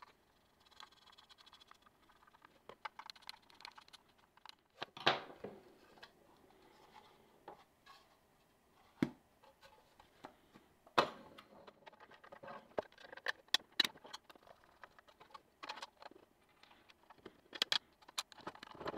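A small screwdriver turns M3 screws into the hinge of a 3D-printed plastic box, with faint scraping and several sharp clicks and knocks of plastic as the box is handled.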